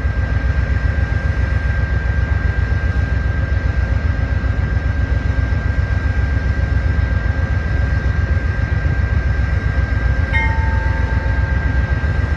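Amtrak passenger train led by a diesel locomotive running, a steady heavy low rumble with a thin, steady high-pitched whine over it. A brief faint tone sounds about ten seconds in.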